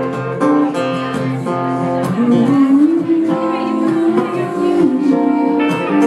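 Live acoustic band playing an instrumental break: strummed acoustic guitar under a second guitar's lead line that slides up and down in pitch.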